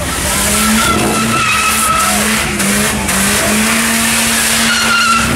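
Polaris Slingshot doing donuts: the rear tyre skids and squeals over an engine held at steady high revs. A high squeal comes and goes and is strongest near the end.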